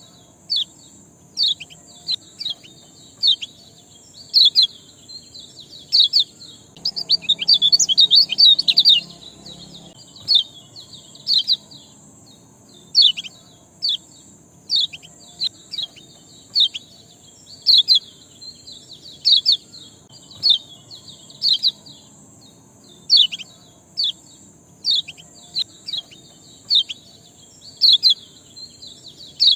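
A small songbird giving short, sharp 'ciak' chirps, each a quick downward sweep, repeated about once a second, with a rapid flurry of chirps around seven to nine seconds in. A faint steady high hiss runs beneath.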